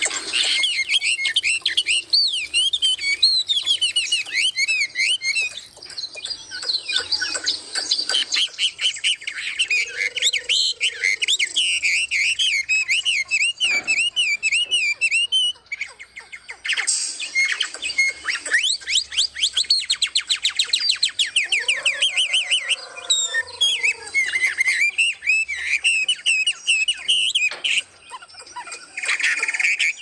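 Several small caged songbirds in an aviary chirping and twittering at once, with many rapid overlapping high calls and trills. There is a brief lull about halfway through, and a lower arching call is heard twice.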